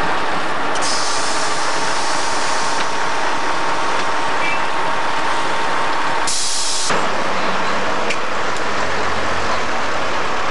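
Steady road-vehicle and traffic noise, with a short sharp hiss about six seconds in.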